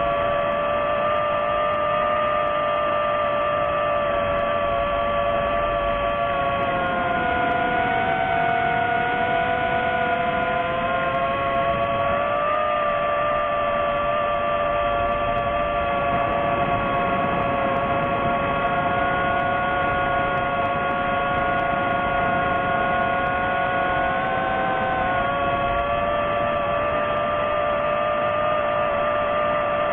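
DJI FPV quadcopter's motors and propellers whining steadily in flight. The whine holds a few steady pitches, sags and recovers about eight seconds in, and shifts again briefly around twenty-five seconds in, as the throttle changes.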